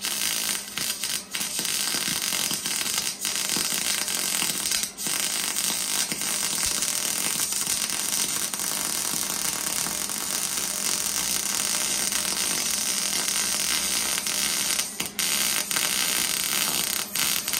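Electric arc welding a bead on galvanized Unistrut steel channel: a steady crackling sizzle with a few brief breaks, stopping near the end. The zinc galvanizing makes this first pass pop its way through the coating.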